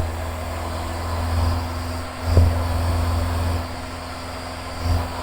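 Van's RV-7's engine and propeller running steadily in flight, a low drone with steady tones as heard in the cockpit, with two brief low thumps, one midway and one near the end.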